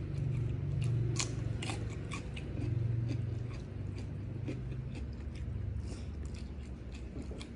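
Close-up mouth sounds of chewing and biting crunchy raw vegetables with rice, with sharp crisp crunches every second or so over a steady low hum.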